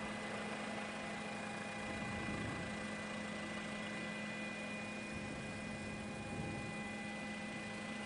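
Steady engine drone and hiss from a helicopter, with a constant hum that does not change.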